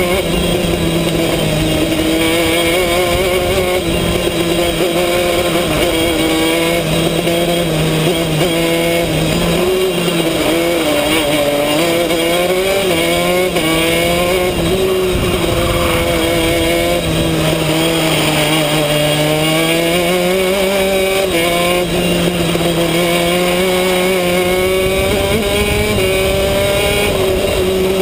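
Two-stroke racing kart engine at speed, heard on board the kart. Its pitch climbs as it revs up on the straights and drops off into the corners, over and over, lap after lap.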